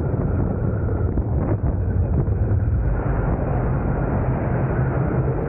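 Wooden roller coaster train running at speed on its wooden track: a steady, heavy low rumble of the wheels mixed with wind buffeting the microphone.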